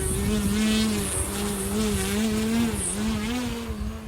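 Electric motor and propeller of a 60-inch Edge 540T radio-controlled aerobatic plane (T-Motor AM600 system) whining in flight, the pitch wavering up and down with throttle and manoeuvres, easing off near the end.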